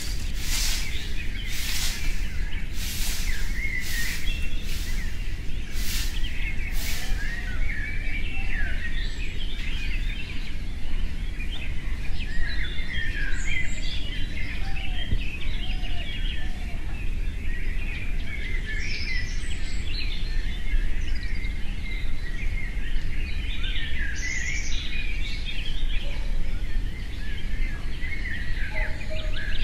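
Small birds chirping and twittering over a steady low background rumble. For the first seven seconds, a run of short rasping strokes comes about once or twice a second.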